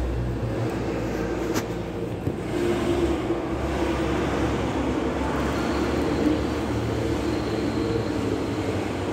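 Steady background rumble and hiss with a low hum, of the kind passing road traffic makes, and a single sharp click about a second and a half in.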